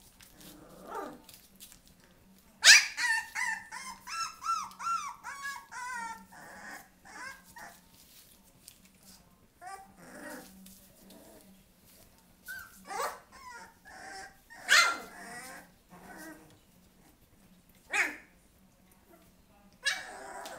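Bouvier des Flandres puppies yelping and whining. A quick run of high, wavering squeals starts about three seconds in and lasts a few seconds; scattered single yelps follow.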